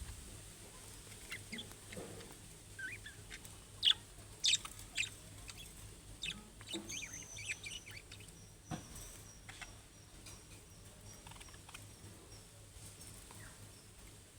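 Budgerigars chirping and chattering: scattered short high calls, the loudest about four to five seconds in, then a quick run of repeated high notes from about seven to twelve seconds in.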